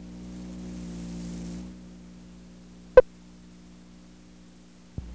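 Steady electrical hum with a light hiss that drops away after a second or so, broken by one sharp click about three seconds in and a smaller click near the end.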